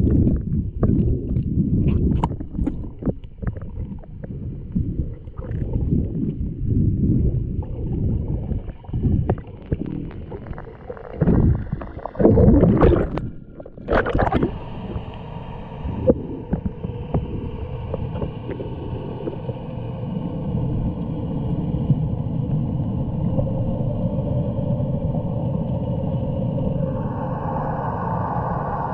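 Muffled underwater water noise on a submerged action camera: irregular sloshing and thumps as the camera moves and dips through the water, with a few sharper knocks. About halfway through it settles into a steady underwater hum with faint tones.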